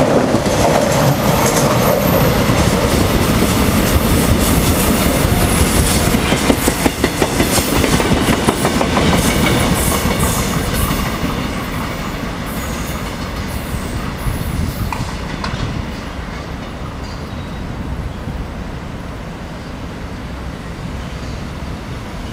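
Korail electric train passing close by, its wheels clicking over the rail joints over a steady rumble. The sound fades away from about eleven seconds in, leaving a quieter, steady rumble from another train.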